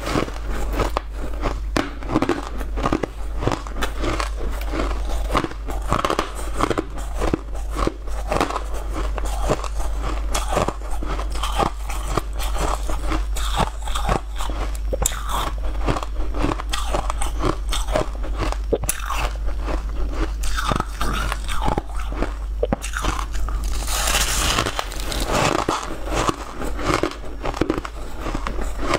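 Biting and chewing a lump of packed, blue-speckled shaved ice: crisp crunches follow one another quickly, with a longer, louder crackling crunch near the end.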